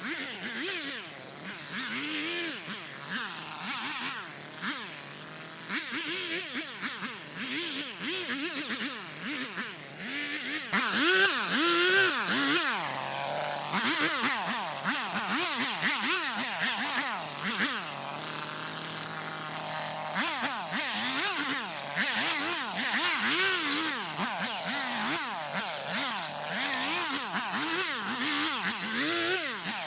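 Stihl MS250 two-stroke chainsaw cutting brush and small trees, its engine revving up and dropping back over and over in quick swoops. It settles briefly to a steadier low note about two-thirds of the way through, then goes back to revving.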